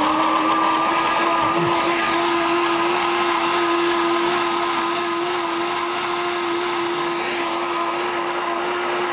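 Countertop blender running steadily, its motor puréeing carrots, celery and water into a vegetable smoothie.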